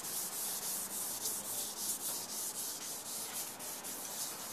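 80-grit sandpaper rubbed by hand back and forth along a yacht's metal propeller shaft: a steady scratchy sanding in quick, regular strokes, keying the shaft's surface so the coating will adhere.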